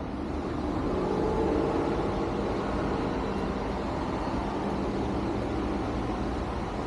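Road traffic heard from a balcony: a steady rumble of vehicles with an engine hum that swells about a second in and then holds.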